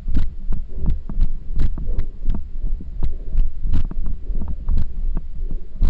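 Running footsteps jolting a body-worn camera, about three thumps a second, over a heavy low rumble of wind buffeting the microphone.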